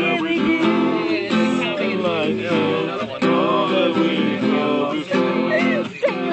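Acoustic guitar strummed in chords, with people singing along.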